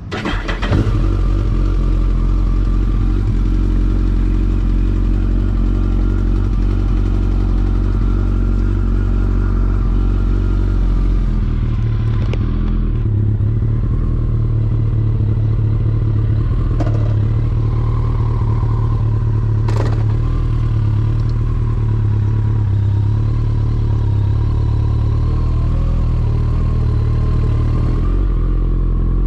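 2012 Kawasaki ZX-14R's inline-four running through a Two Brothers Black Series exhaust, coming in loud right at the start and then idling steadily. The note of the idle changes about eleven seconds in.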